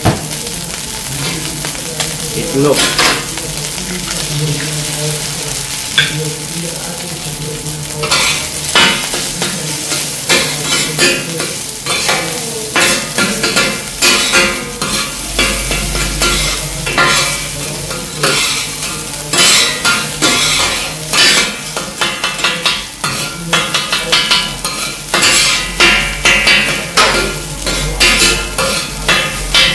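Rice and egg sizzling on a flat-top griddle while metal spatulas scrape and chop through it. From about eight seconds in there is frequent, irregular clattering as the blades strike the steel plate.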